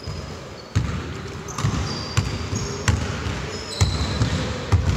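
Basketball bouncing on a court floor in irregular thumps, about one or two a second, with short high-pitched sneaker squeaks in between.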